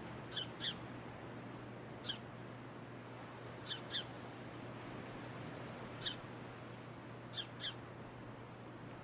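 Faint short bird chirps, singly or in quick pairs, about every two seconds, each a brief high note dropping slightly in pitch, over a low steady hum.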